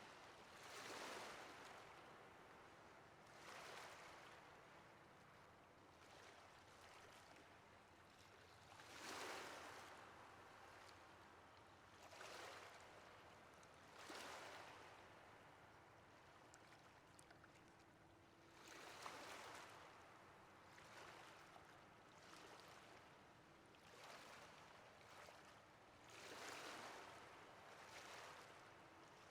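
Ocean waves washing in, faint: a steady hiss of surf that swells and falls back every few seconds, about a dozen waves in all.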